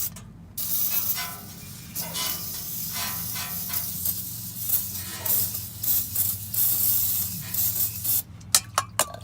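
Aerosol can of PB Blaster penetrating oil being sprayed onto rusty exhaust flange bolts and spring nuts, hissing in a string of short bursts, followed by a few sharp clicks near the end.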